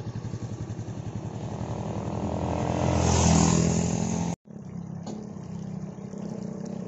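A motorcycle engine draws near and rides past, loudest about three seconds in. After a sudden cut a little past four seconds, a fainter, steady motorcycle engine hum follows.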